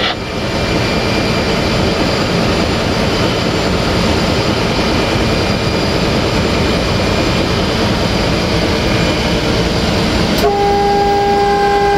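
Steady loud din inside the cab of a 060-DA (LDE2100) diesel-electric locomotive, from its Sulzer diesel engine and running gear. Near the end the locomotive's horn starts, a steady tone that holds.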